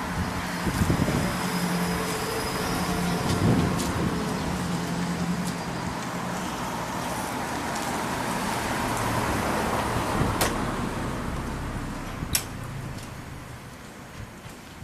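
Steady background vehicle and road-traffic noise with an on-and-off low drone, growing quieter near the end, and two sharp clicks about ten and twelve seconds in.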